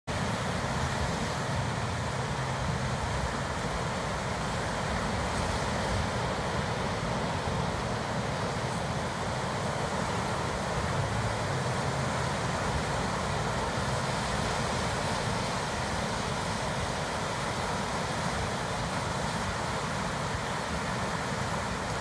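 Ocean surf washing in over a rocky boulder shore: a steady, even rush of waves with no single standout break.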